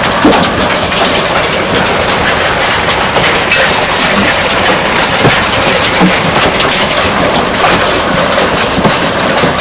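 Hailstorm: hailstones pelting the garden in a dense, steady clatter of many small impacts.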